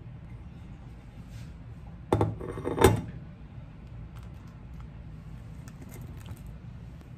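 A ceramic plate set down on a stainless steel counter: a clatter about two seconds in and a louder clink just under a second later, followed by faint taps as the plate and food are handled.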